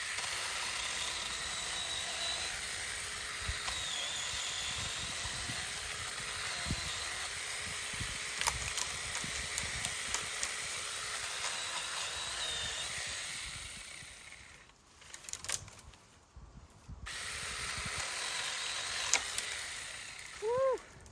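Saker mini electric chainsaw cutting through a thick limb, running steadily under load for about fourteen seconds, stopping briefly, then cutting again for a few seconds near the end. The cut is slow, a lot of work for so small a saw: about the largest limb it can manage.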